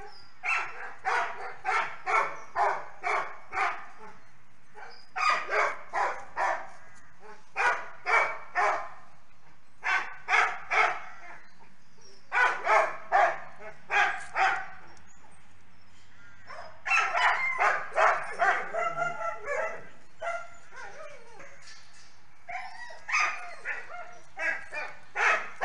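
Dog barking repeatedly in runs of about three to seven sharp barks, with short pauses between runs. A denser, more jumbled stretch of barking comes a little past halfway.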